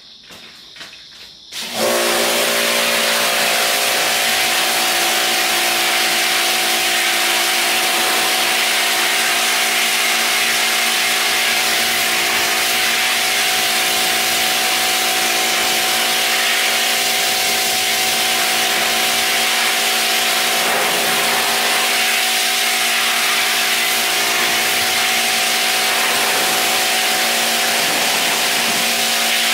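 Pressure washer spraying water inside a steel smoker cabinet: a loud, steady hiss of the jet on the metal over the machine's steady hum. It starts abruptly just under two seconds in.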